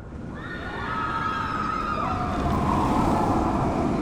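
Roller coaster cars coming out of a tunnel, a low rumble building up as they approach, with riders screaming over it in several wavering voices. An unprocessed recording.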